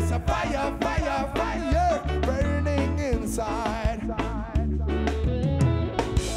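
Live reggae band playing: a singer holds wavering notes over a heavy bass line and drums.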